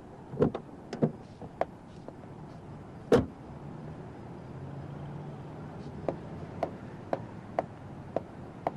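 Car door clicking open and then slammed shut about three seconds in, followed by footsteps walking away at about two steps a second.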